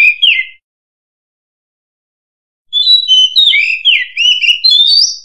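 Oriental magpie-robin singing loud, clear whistles: a phrase of varied slurred notes ends about half a second in, and after a two-second pause a longer phrase of rising and falling whistles begins.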